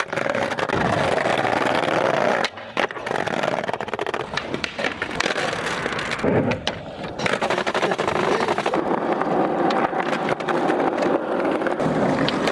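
Skateboard wheels rolling over rough pavement, with sharp clacks of the board hitting the ground during tricks. The rumble breaks off briefly twice.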